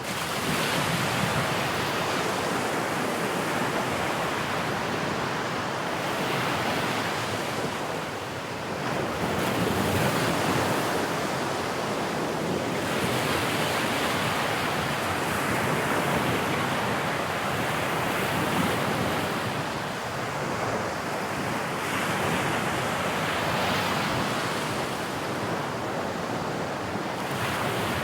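Sea waves breaking and washing on a shore, a continuous surf wash that swells and eases every few seconds. Wind rushes across the microphone.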